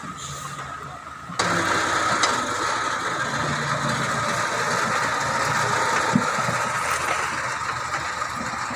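Diesel engine of a backhoe loader running steadily while it carries palm fruit bunches in its front bucket. The sound jumps suddenly louder about a second and a half in.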